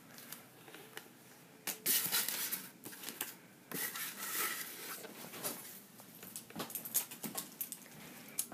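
Handling noise from a plastic American Girl salon styling caddy being turned over in the hands: bursts of rustling and scraping about two seconds in and again around four seconds, then scattered light clicks.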